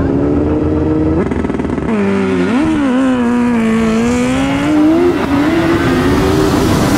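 2002 Yamaha YZF-R1 inline-four engine at full throttle on a drag-strip run, its pitch climbing through the revs and dropping sharply at each upshift, with shifts near the middle and about five seconds in.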